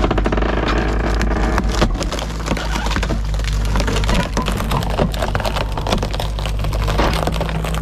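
Poplar wood cracking and splintering continuously as it is broken up by machinery, over the steady drone of an engine.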